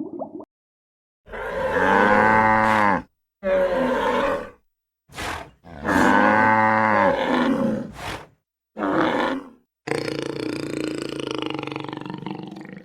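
A large animal's loud roaring calls, about six of them, each rising and falling in pitch, with sudden cuts to silence between them, then a rougher, noisier call over the last few seconds.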